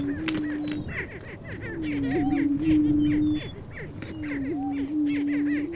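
Male prairie chickens booming on a lek: three long, low moaning notes of a second or more each, over a constant chatter of short high cackles and whoops from other displaying birds.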